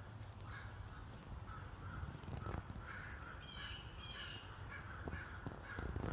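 Crows cawing over and over in short, evenly repeated calls, with a brief higher chirping from a small bird in the middle. The owner takes the crows' noise for alarm at a hawk close by.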